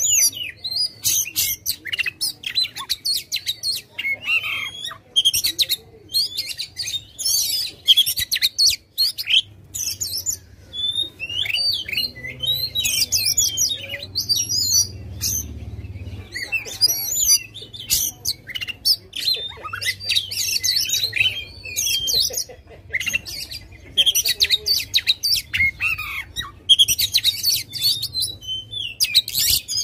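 Oriental magpie-robin (kacer) singing aggressively: rapid, varied runs of high whistles, trills and chattering notes, in bursts with short pauses between.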